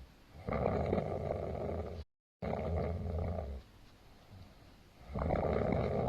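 A man snoring: two long, rasping snores, the first starting about half a second in and the second about five seconds in, with quieter breathing between them. The first snore cuts out completely for a split second about two seconds in.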